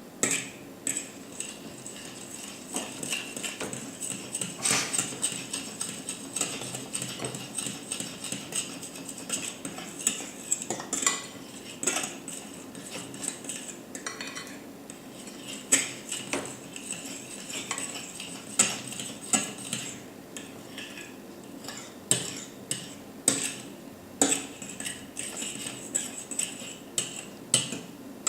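A utensil stirring glue and shaving foam together in a bowl, with many irregular clicks and taps against the bowl as it goes round.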